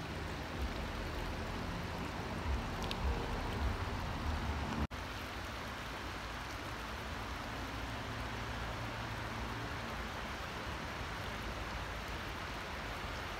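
Steady rush of running water. A few low rumbles come in the first few seconds, and the sound drops out for a moment about five seconds in.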